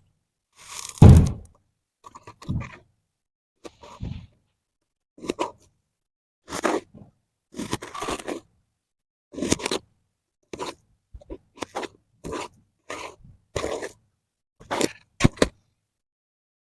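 A blade cutting through kinetic sand: a series of short scraping, crunching strokes, roughly one or two a second, with silence between them. The loudest comes about a second in.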